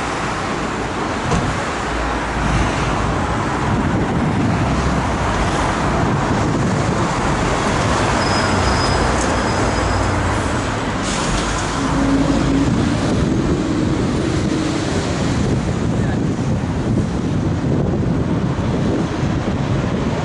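City road traffic: cars and lorries driving past in a steady rush of engine and tyre noise, with a brief thin high squeal about eight seconds in.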